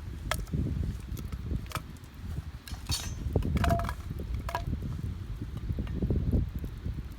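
Campfire crackling, with a handful of sharp pops and clinks, one ringing briefly, over a steady low rumble.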